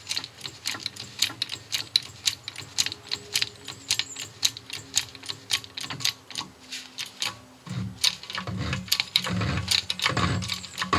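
A 6-ton hydraulic shop press being worked to drive a wheel hub into the inner race of a new wheel bearing: rapid, irregular clicking, with heavier low knocks joining about eight seconds in.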